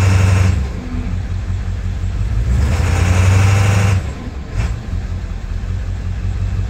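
Ford 7.3 L Powerstroke V8 turbo-diesel being revved and let off twice. It is held up at first and falls back about half a second in, then comes up again and drops back toward an uneven idle about four seconds in. The owner is chasing a rough, loping idle on throttle release.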